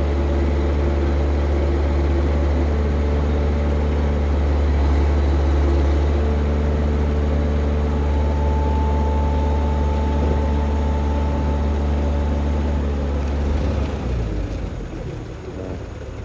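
Heavy diesel engine of road-works machinery running steadily close by, deep and even, with a faint steady whine for a few seconds in the middle. It drops away about 14 seconds in.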